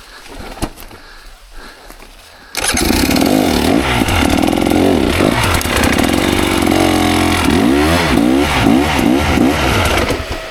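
KTM 300 XC two-stroke single-cylinder dirt bike engine starting abruptly about two and a half seconds in, then revving up and down repeatedly. The engine sound drops away just before the end.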